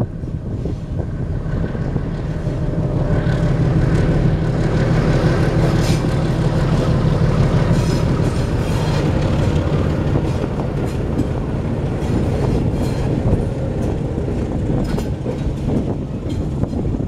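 Two ALCO YDM 4 metre-gauge diesel locomotives passing close by, their engines running with a deep hum that swells to its loudest in the first half and then eases as they go by. The passenger coaches follow with the clickety-clack of wheels over rail joints.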